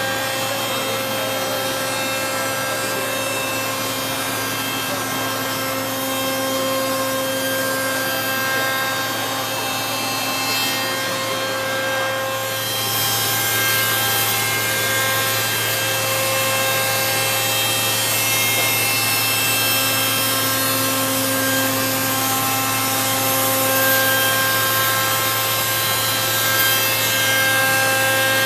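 Circular saw blade of an automated timber-cutting machine running and sawing through a timber beam: a steady machine hum and whine under continuous sawing noise. The sawing turns harsher and hissier about halfway through.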